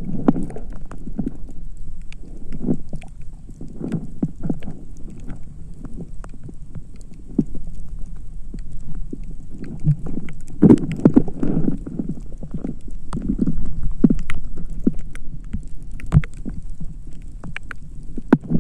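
Water sloshing and knocking against a camera in the sea during night spearfishing: irregular muffled low thuds with scattered sharp clicks, busiest about ten to fourteen seconds in.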